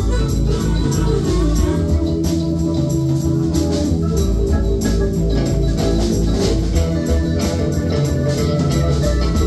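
Live rock band playing an instrumental passage: organ-style keyboard over electric guitars, bass and a steady drum beat with cymbals.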